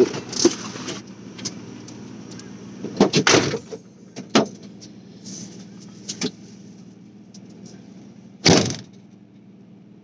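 Car doors being opened and shut: a few clunks and knocks, then a door slamming shut, the loudest sound, about eight and a half seconds in.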